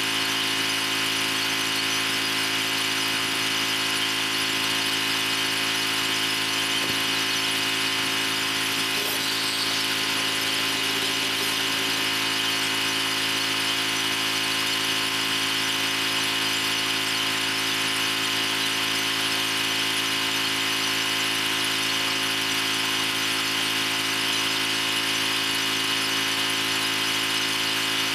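Pressure washer running steadily: a constant machine drone under the hiss of the high-pressure water spray.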